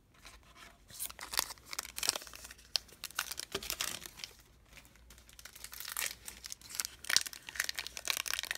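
Wrapper of a Panini Past & Present basketball card pack crinkling and tearing as it is pulled open. The crackling starts about a second in, eases off midway, then comes back louder and busier near the end.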